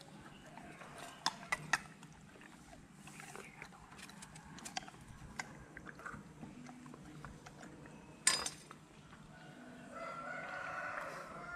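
Golden retriever chewing a piece of soft fruit with open-mouthed wet smacks and clicks, with one sharp crack about eight seconds in. Near the end a drawn-out animal call rises in the background and falls away.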